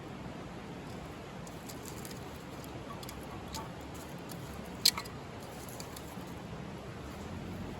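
Wood fire crackling, with scattered small ticks and one sharp, loud pop about five seconds in.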